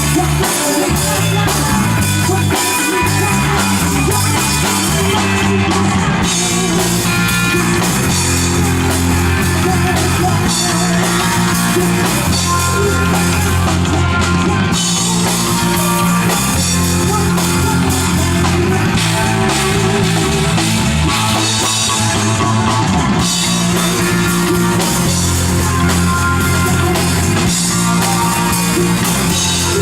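Rock band playing live: drum kit with cymbals and electric guitar over a bass line of long held notes.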